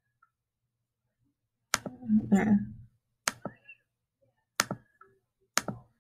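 Computer mouse button clicks: four sharp clicks a second or so apart, each a quick double tick of press and release. A brief murmur of a voice comes just after the first click.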